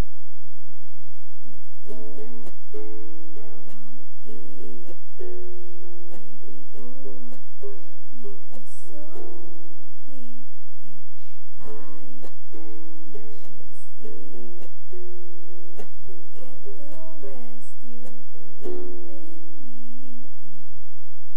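Ukulele strummed in a steady rhythm of chords, with a low steady hum underneath.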